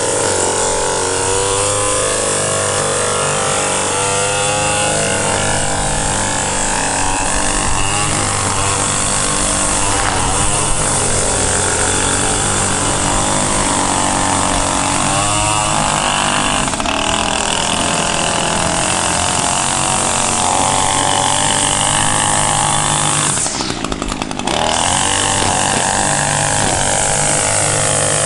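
Echo two-stroke string trimmer running under throttle while trimming grass, its engine pitch rising and falling as the throttle is worked, with a brief drop in level near the end.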